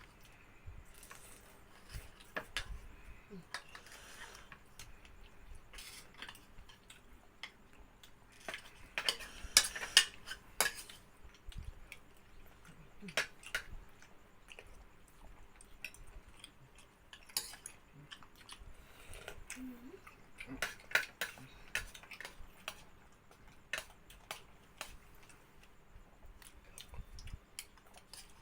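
Spoons clinking and scraping against bowls and plates during a meal, in scattered short clicks. The loudest run of clinks comes about nine to eleven seconds in.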